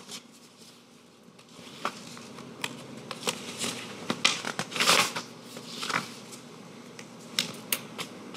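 Paper rustling and crinkling in short, scattered bursts with small clicks, as a sealed envelope is opened and the folded verdict form inside is handled; the longest rustle comes about five seconds in.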